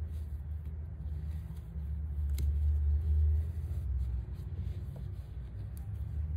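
Low rumble, swelling from about two to three and a half seconds in, under faint handling sounds of T-shirt yarn being pulled through the edge of a crochet bag, with two light clicks.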